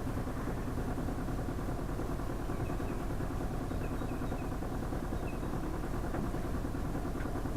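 Sailboat's inboard engine running steadily, a constant low drone.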